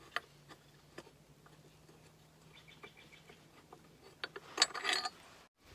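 Light metallic clicks and ticks as a loosened 16 mm motor-mount bolt is drawn out by hand, with a louder clatter of metal about four and a half seconds in.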